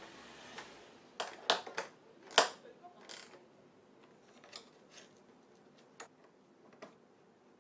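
A series of sharp clicks and knocks as hard parts are handled, bunched together around a couple of seconds in with the loudest about two and a half seconds in, then a few fainter ticks.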